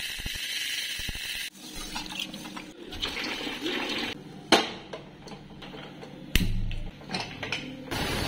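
Dry whole mung beans rattle as they pour into an aluminium pressure cooker. Water then pours in over them, with two sharp metal knocks along the way and a steady hiss near the end.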